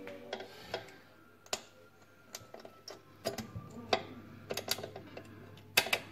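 Irregular sharp clicks and light knocks of metal parts being fitted by hand on a Neff Slide and Hide oven door's side rails, with a sharper click about four seconds in and two loud ones near the end.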